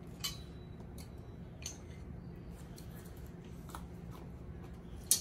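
Scattered light clicks and rustles of wooden clothes hangers and garments being handled on a metal display rail, with a sharper click near the end, over a steady low room hum.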